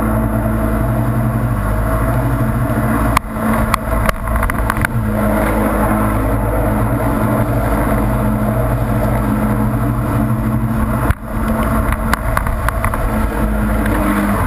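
Stand-up jet ski engine running at speed, mixed with rushing water spray and wind on the camera. About 3 seconds in and again about 11 seconds in the sound dips sharply with a few knocks before the engine note picks back up.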